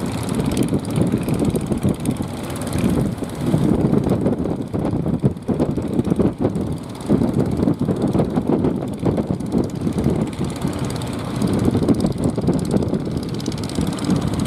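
Small engines of jukung outrigger fishing boats running steadily, rising and falling in loudness as the boats pass through choppy water.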